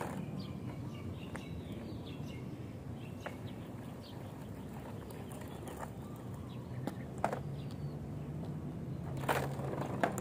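A caster board's small wheels rolling on coarse asphalt, a steady low rumble with occasional clicks, and a louder scrape near the end. Birds chirp faintly in the first couple of seconds.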